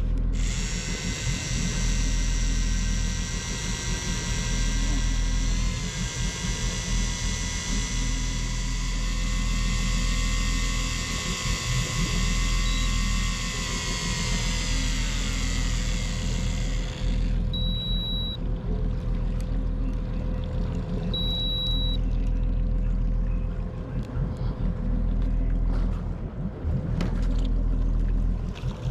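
Boat engine running with a steady low rumble. Over it a high motor whine runs, slides down in pitch and cuts off about 17 seconds in, and two short high beeps follow.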